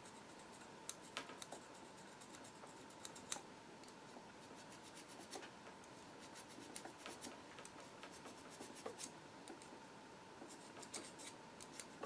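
Diamond needle file rubbing lightly on the inner edge of a steel shuttle retaining ring, heard as faint, irregular scratches and tiny clicks, over a faint steady hum. The file is taking off burrs that would snag and break the thread.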